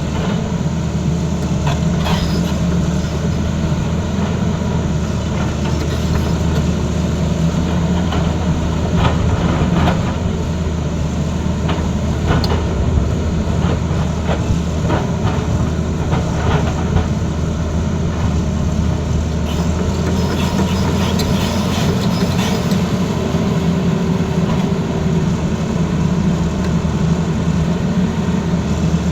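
Tata Hitachi excavator's diesel engine running steadily under load, with scattered knocks and scrapes through the middle as the bucket cuts into the road surface.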